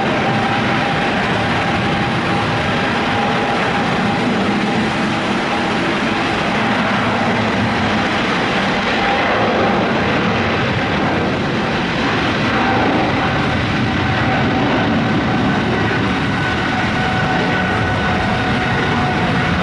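Boeing 777-300ER's GE90-115B turbofan engines running at high power for departure: a loud, steady rush of noise with a steady whine held over it.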